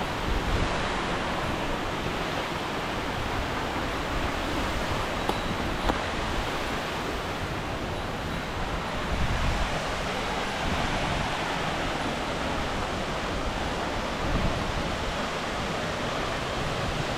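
Waterfall pouring into its plunge pool: a steady, heavy rush of falling water. The wind blown off the falls buffets the microphone in gusts, about nine and fourteen seconds in.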